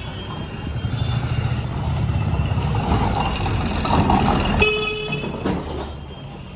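City street traffic: vehicle engines running and passing, with a horn honking once, briefly, about two thirds of the way through.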